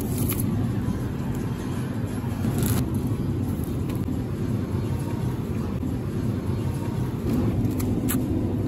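Steady low rumble of supermarket background noise, with a few faint clicks.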